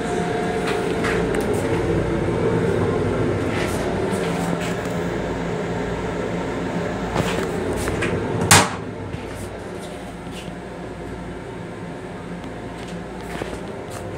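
Plastic toilet lid in a railcar restroom being handled and raised, giving small clicks and one sharp knock about eight and a half seconds in, over the steady hum and rumble of the commuter railcar; the hum drops a little after the knock.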